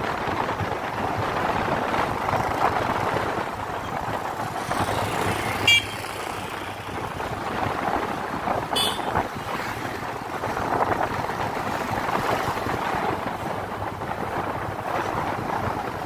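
Steady road and wind noise from a moving vehicle travelling along the street, with two short horn toots, one about six seconds in and one about nine seconds in.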